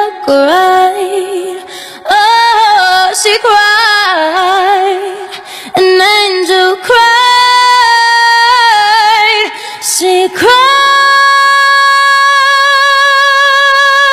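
Female voice singing a cappella, a slow melody sliding between notes with short breaks, then settling about three quarters of the way through into one long held note.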